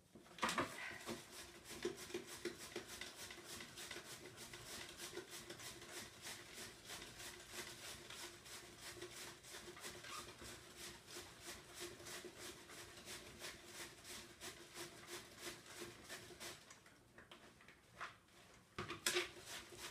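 White cabbage being shredded on a handheld mandoline-style shredder into a plastic bowl. The quick, even strokes come about four a second, stop for a couple of seconds near the end, then start again briefly.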